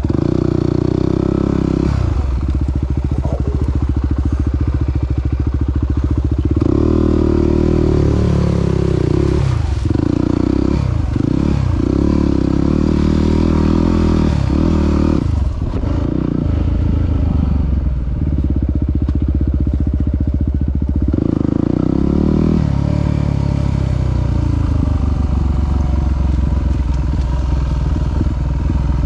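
Yamaha WR250R's 250 cc single-cylinder engine running under way, the revs rising and falling with the throttle. Several quick dips and recoveries in engine pitch come in the middle stretch.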